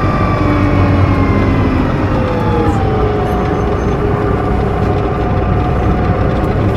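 Neoplan Centroliner double-decker bus running, heard close to the hatch over its Voith Diwa 864.3E automatic gearbox, with its Mercedes-Benz OM 501 LA V6 diesel behind it: a low drone with a whine that falls in pitch over about three seconds and then holds steady.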